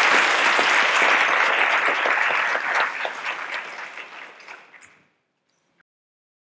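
Audience applauding, a dense patter of many hands clapping that thins out and fades away over about two seconds before it stops.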